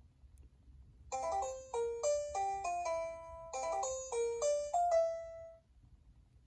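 Cingular 8525 (HTC Hermes) Pocket PC ringtone playing: a short electronic melody of bright, clear notes, a phrase heard twice, starting about a second in and ending on a held note that fades about a second before the end.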